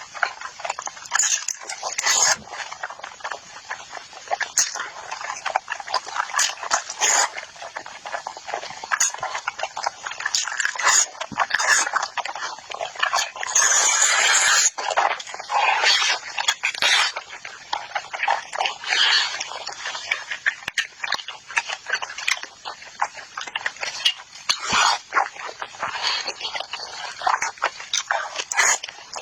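Close-miked eating sounds: a person chewing and biting into chicken, a dense, unbroken run of wet clicks, smacks and crunches.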